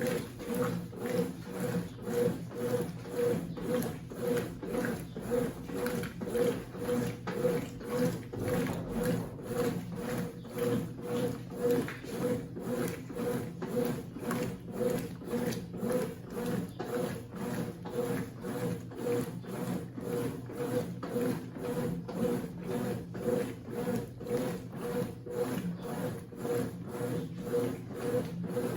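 Consul 8 kg CWC08 washing machine running its wash cycle, with even rhythmic strokes about two a second over a steady motor hum.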